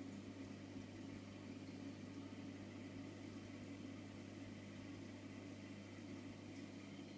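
Steady low hum with a faint even hiss from a running tropical marine reef aquarium's equipment, such as its circulation pumps and fans.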